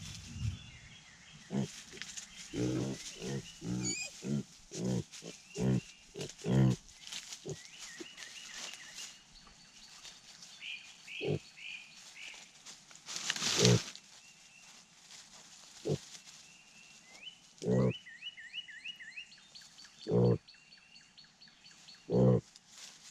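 Pigs grunting: a quick run of short grunts over the first seven seconds, then single grunts every couple of seconds, with faint high chirping in the background.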